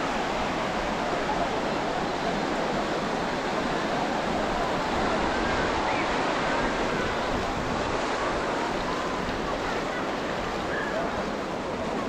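Ocean surf washing on the beach, a steady rush of water, with faint voices of people mixed in.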